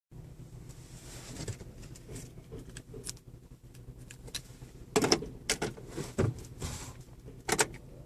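Car keys and key fob handled inside a minivan's cabin: scattered clicks and jingles, loudest in a cluster about five seconds in and again near the end.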